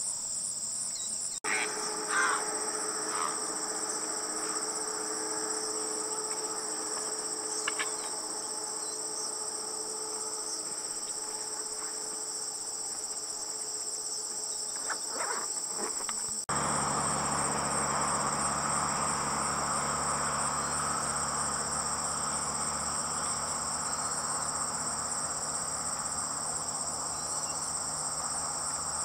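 Late-summer insect chorus in a marsh: a steady, high, continuous trilling. A few brief sharp sounds come about two seconds in, near eight seconds and around fifteen seconds. The background changes abruptly twice, at about one and a half seconds and at about sixteen seconds, and the low background noise is louder after the second change.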